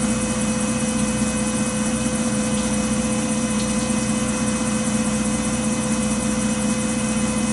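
Tormach 770 CNC mill cutting a Glock 35 steel slide with an end mill under flood coolant: a steady machine drone with constant whining tones from the spindle, coolant and cutting.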